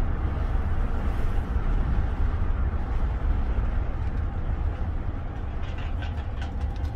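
Car driving slowly, heard from inside the cabin: a steady low engine and road rumble, with a few light clicks near the end.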